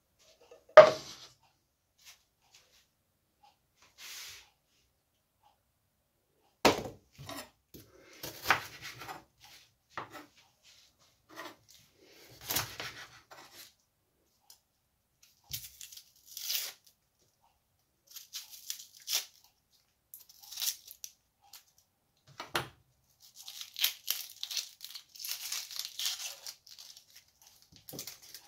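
An onion being cut with a chef's knife on a bamboo cutting board and peeled by hand. Scattered sharp knocks of the blade on the wood come through, the sharpest about a second in, and the onion's dry papery skin crackles and tears as it is peeled, busiest over the last several seconds.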